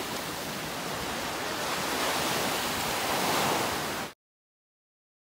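Steady rushing of water, like surf on a shore, swelling a little near the end and cutting off abruptly about four seconds in.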